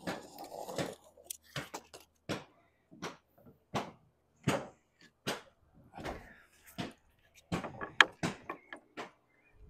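Sharp, irregular wooden knocks on sheet lead, roughly two a second, as a wooden lead dresser is worked to knock up a 25 mm welt along the lead's edge; a short scrape at the start, and the loudest knock near the end.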